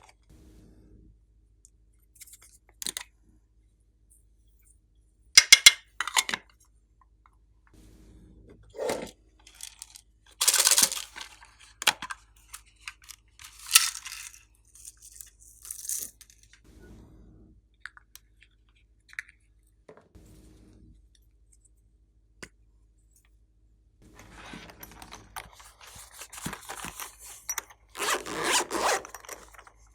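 Slime being mixed and worked, giving sticky crackling and scraping noises in irregular bursts, with a few sharp clicks. The loudest bursts come near the middle and near the end.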